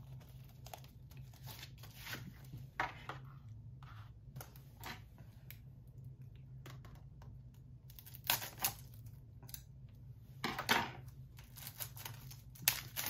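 Plastic shrink-wrap being torn and crinkled off a Blu-ray case, in scattered rustling bursts and clicks of handling, loudest in the second half, over a faint steady low hum.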